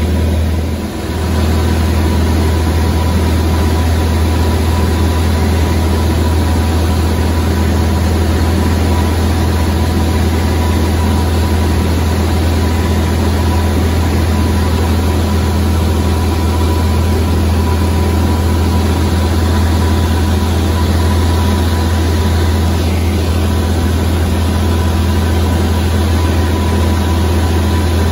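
Single-engine light aircraft's propeller engine droning steadily, heard from inside the cabin, with a deep hum and a thin steady whine above it. The level dips briefly about a second in.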